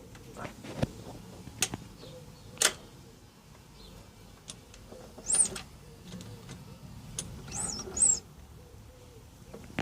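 Scattered sharp clicks and taps at uneven intervals, with a bird chirping briefly about five seconds in and again near eight seconds.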